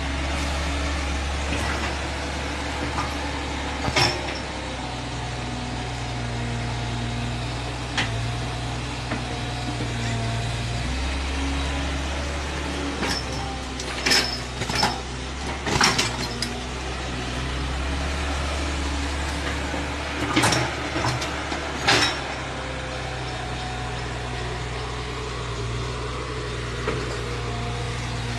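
Diesel engine of a Kato HD450SE hydraulic excavator running steadily as the machine works, its low note shifting a few times. Sharp knocks cut through it, single ones early on and quick clusters near the middle.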